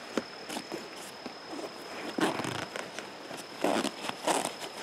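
Zipper on a nylon backpack pouch being pulled open in several short strokes, starting about two seconds in, with the nylon fabric rustling under the hands.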